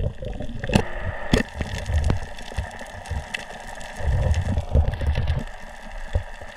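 Underwater sound picked up by a camera in its housing during a night dive: low, muffled rumbles of moving water with scattered sharp clicks, the loudest about a second in. A faint steady high tone runs underneath.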